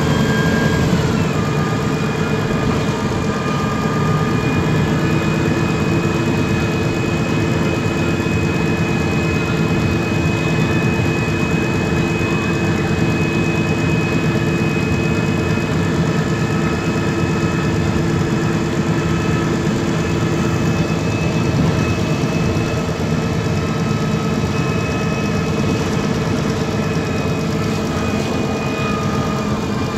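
MAN Lion's City G CNG articulated bus, its MAN E 2866 natural-gas engine running steadily at low revs, as at idle. A whine falls in pitch about a second in.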